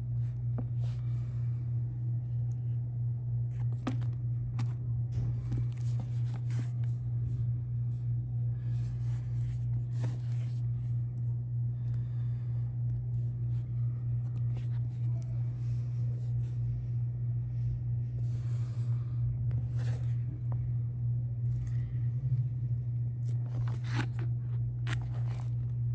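A steady low hum, with scattered soft scrapes and light clicks from a leather-bound Bible being handled and turned in the hands.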